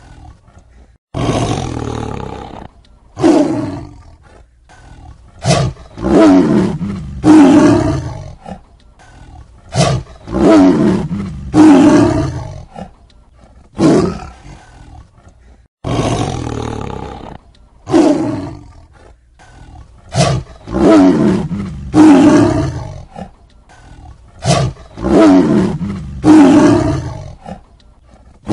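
Tiger roaring and growling in a series of loud, short roars about one to two seconds apart, each dropping in pitch as it fades. The same run of roars repeats about halfway through, as a looped recording.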